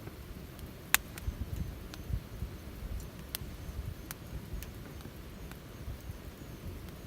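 Wood campfire crackling, with about half a dozen sharp pops, the loudest about a second in, over a steady low rumble.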